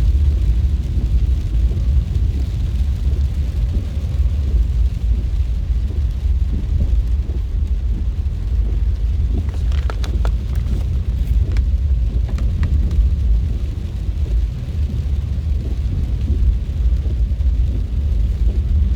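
Car cabin noise while driving in heavy rain: a steady low rumble of road and engine, with a few short ticks about ten to thirteen seconds in.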